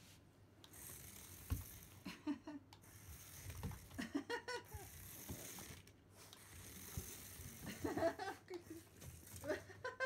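A Pomeranian's excited sniffing and snuffling noises, coming in a few short bursts, as it investigates a remote-control toy mouse.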